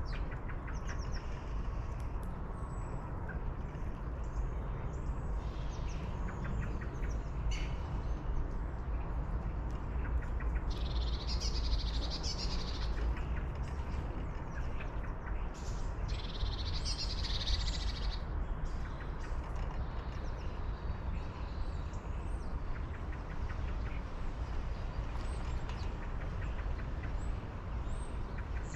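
Wild birds chirping and calling, with two longer, busier stretches of song about eleven and sixteen seconds in, over a steady low rumble.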